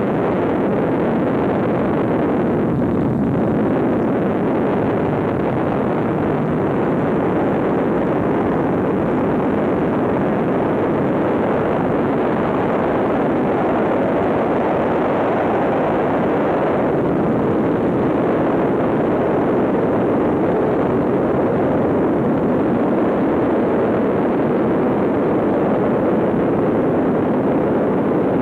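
A Tiger Moth biplane's engine running, together with the rush of wind through the open cockpit, as it lands and rolls out along the runway. It is a steady, loud noise throughout, and the hiss softens a little past the middle.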